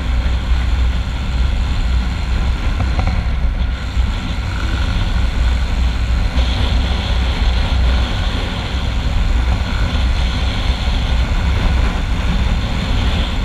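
Hozaka 150 GNX motorcycle running steadily at cruising speed on a highway, its engine heard under strong wind rushing over the camera microphone.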